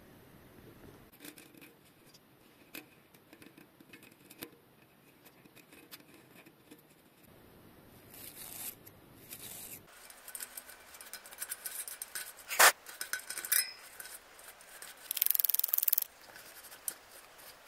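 Hand work on the parts of a dismantled bicycle front hub: scattered light clicks and rubbing, getting busier about halfway through, with one sharp click about two-thirds of the way in and a scraping hiss lasting about a second near the end.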